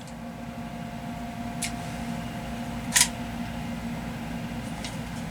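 A single sharp shot from a Taurus TX22 .22 LR pistol about three seconds in, with a lighter click earlier and faint clicks near the end. A steady mechanical hum runs underneath.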